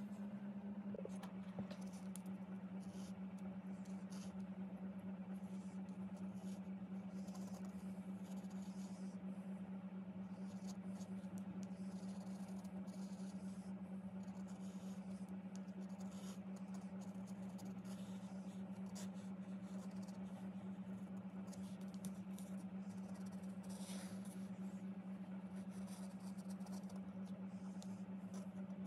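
A steady low hum, with the faint, irregular scratching of a graphite pencil drawing strokes on cardboard.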